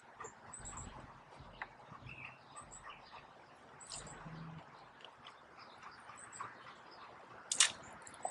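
Faint clicks and small knocks as a plastic garden pump sprayer and its spray wand are handled, under short high bird chirps. Near the end comes a brief sharp hiss, the loudest sound.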